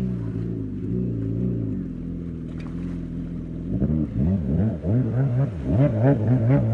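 Engine running steadily, then from about four seconds in revving up and down over and over, roughly once a second.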